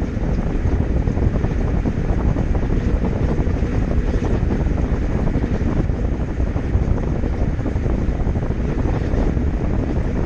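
Samsung top-load washing machine on its spin cycle, drum spinning at speed with a loud, steady, low rushing noise and no clear tone.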